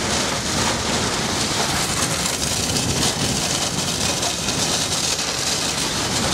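Strong wind and rain hitting a car, heard from inside the cabin: a loud, steady rushing noise with no let-up. It comes from winds near a tornado that are put at about 100 miles an hour.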